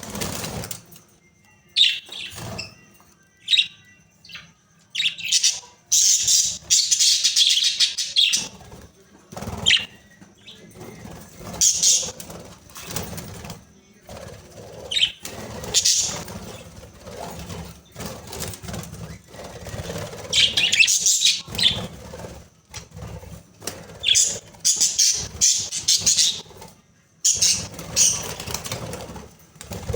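Budgerigars chirping and chattering in repeated short, high-pitched bursts separated by quieter gaps.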